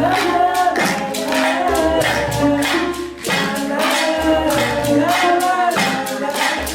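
Music: singing over a steady beat of sharp percussive hits, with a low bass line underneath.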